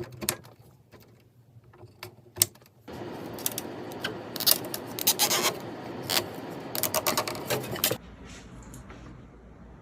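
A few sharp clicks, then about five seconds of rubbing and scraping with repeated scratchy strokes, which stops suddenly near the end and leaves a faint low hum.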